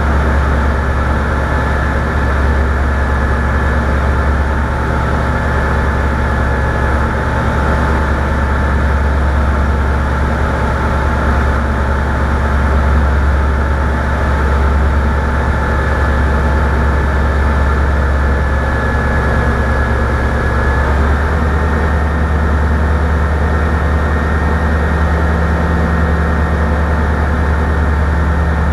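An engine running steadily with a low hum, its note shifting slightly about 21 seconds in.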